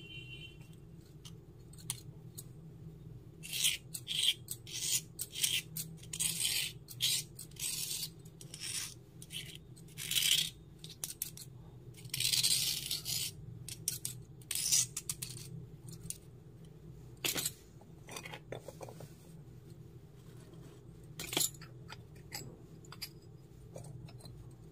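Scraping and rubbing of batter in a miniature stone mortar: a run of short, quick scrapes, followed later by two sharp clicks.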